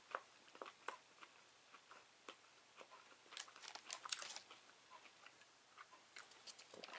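Faint chewing and light crinkling of food packaging while eating chicken nuggets, scattered small clicks with a denser run of crinkling about three and a half to four and a half seconds in.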